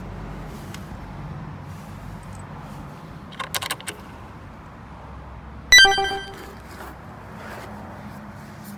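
Metal exhaust hardware being handled during a muffler fitting: a few small clinks about three and a half seconds in, then one sharp metallic clang that rings with a clear tone for about a second before fading.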